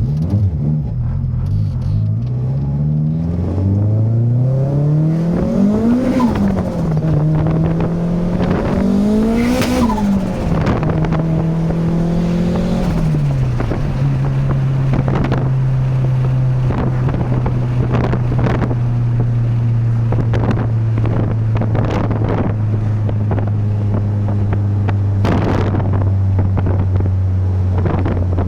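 Turbocharged Honda B16 inline-four engine revved up twice, each time with a burst of turbo flutter as the throttle closes. It then runs steadily at a slowly falling speed, with more short fluttering bursts.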